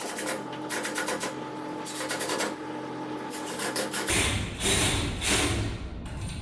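Hand tools working on stainless steel railing fittings: runs of quick metallic clicking and rattling, then a few louder scraping strokes from about four seconds in.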